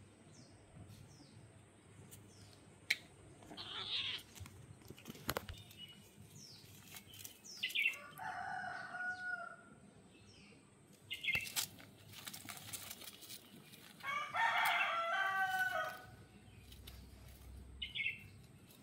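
A rooster crows twice, each crow lasting about two seconds, once near the middle and once later on. Short chirping calls and a couple of sharp knocks fall in between.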